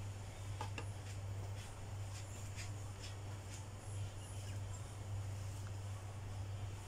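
A steady low hum, with a few faint clicks and scrapes from a kitchen knife cutting soft mango against a plate.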